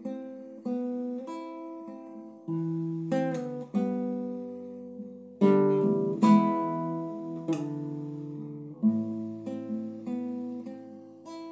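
Classical guitar played solo: plucked notes and chords, each ringing and fading, with a loud strummed chord about halfway through.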